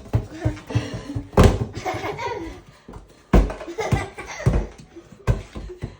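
A young child laughing and vocalising in short bursts, with several loud thumps, the strongest about a second and a half in and again past the middle.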